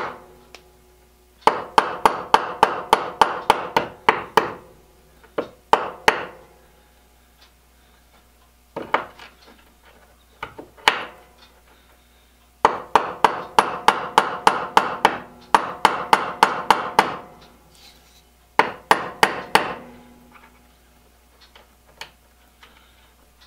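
Ball-peen hammer tapping the end of a small pin in a Millers Falls push drill chuck held in a bench vise, peening the pin's end over to hold it in place. Runs of quick, ringing metal taps, about four a second, with pauses and a few single taps between the runs.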